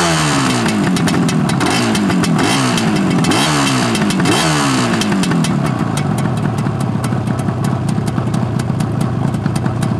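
1974 Suzuki GT250's two-stroke parallel-twin engine being blipped: several quick throttle blips, revs rising sharply and falling back about once a second, then settling to a steady idle about halfway through.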